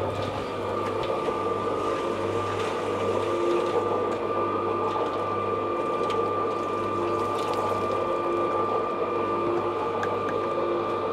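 Small electric cement mixer running: a steady motor hum with a rattle from the drum gearing, and water sloshing in the turning drum as it is poured in.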